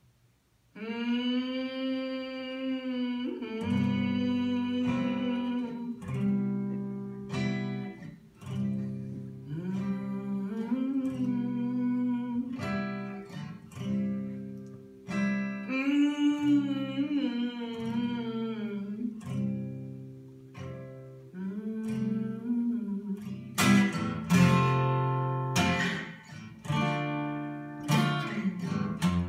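Live acoustic guitar and voice: a long held vocal note opens alone, then strummed and picked acoustic guitar comes in under the singing a few seconds in. The strumming gets harder and louder near the end.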